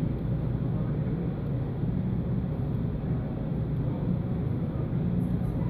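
Steady low rumble of street traffic, even throughout with no distinct events.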